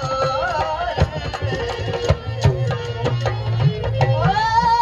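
Rajasthani folk dance music: a steady drum beat under a wavering melody that rises to a held high note near the end.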